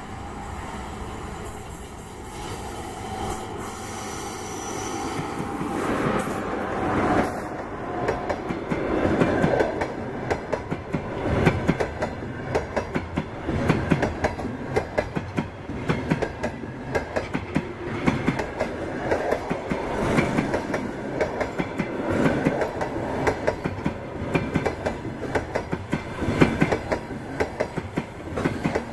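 ChS4T electric locomotive hauling a passenger train, growing louder as it approaches. The coaches then roll past with a steady rattle and the clickety-clack of wheels over rail joints.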